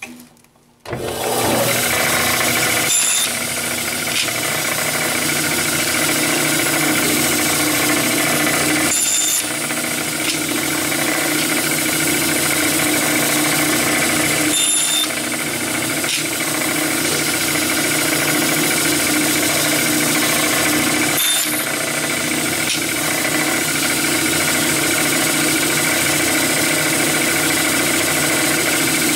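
Band saw switched on about a second in and running steadily while a board is crosscut on a sled, piece after piece, with a brief break in the sound about every six seconds.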